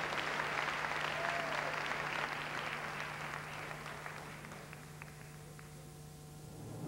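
Audience applauding, thinning out and dying away over the last few seconds, over a steady low hum.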